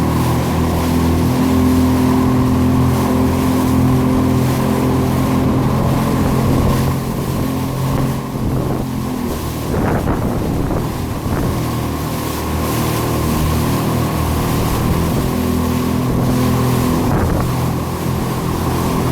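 Jet ski engine running at a steady pitch, with wind on the microphone and rushing water. The engine note fades about halfway through and comes back for a while near the end.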